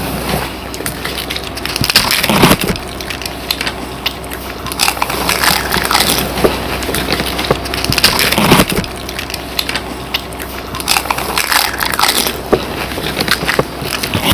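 Close-up crunching and cracking of crisp fuchka (pani puri) shells, chewed in the mouth and broken open by fingertips. The crunches are dense and irregular, with a few sharper louder cracks.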